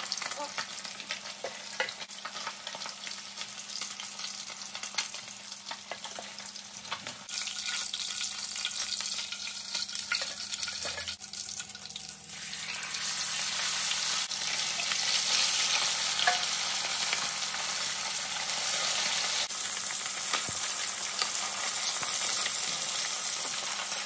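Sea bass frying in hot oil in a cast iron wok: a steady sizzle full of small crackles and spits, getting louder about halfway through.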